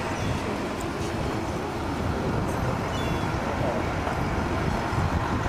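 Wind rumbling on the microphone over a steady wash of outdoor noise, with faint distant voices.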